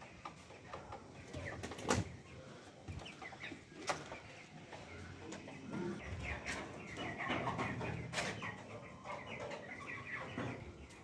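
A flock of young broiler chickens, about three and a half weeks old, chirping and clucking in many short overlapping calls. A few sharp knocks come through, about two, four and eight seconds in.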